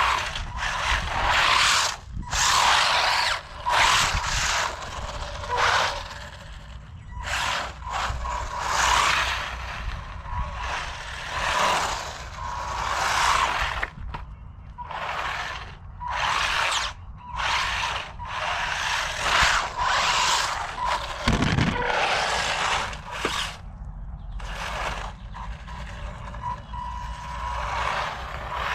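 Brushed electric motor and drivetrain of a WLToys 144001 RC car running in repeated bursts of throttle, each a second or so long, with short pauses between.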